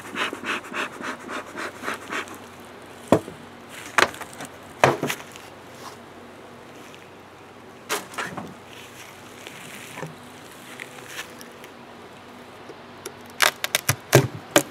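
Bee smoker bellows puffing quickly, about four puffs a second, for the first two seconds. Then come sharp wooden knocks, three in a row and a few more later, as the hive's covers are taken off, and a fast run of clicks near the end. A faint buzz of honeybees runs underneath.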